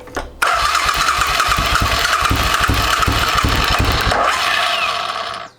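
Suzuki Intruder V-twin motorcycle engine cranking on its electric starter for about five seconds: a steady starter whine over rhythmic low pulses, starting suddenly about half a second in and dying away near the end. It is turned over with the front cylinder's plug lead on a spark-gap tester to check the ignition coil, which proves good.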